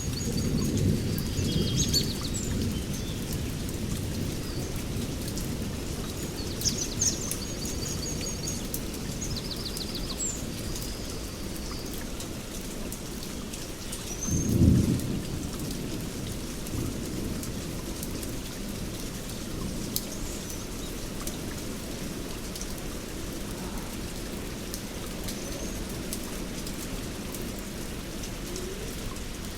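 Heavy rain falling steadily, with low rolls of thunder: one at the start and a louder one about halfway through. A few high chirps come through in roughly the first ten seconds.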